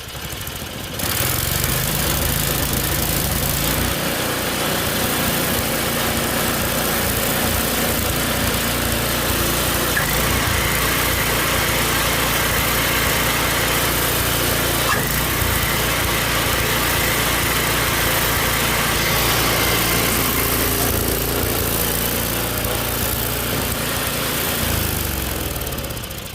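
Snowblower's small Tecumseh engine, off choke, speeds up about a second in and runs steadily at speed, then slows and stops near the end.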